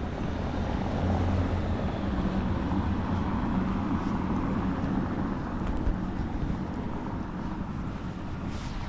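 City street traffic: a passing vehicle's engine hum over general road noise, slowly getting quieter in the second half.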